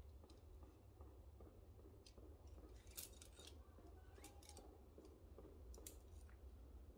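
Near silence: a low steady rumble with a few faint scattered clicks, the sharpest about halfway through and another near the end.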